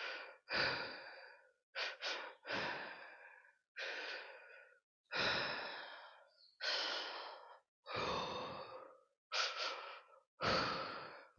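A woman taking deep, heavy breaths, in and out, about ten in a row with short pauses, a couple of them quick and close together. It is deliberate deep breathing to calm herself out of emotional distress.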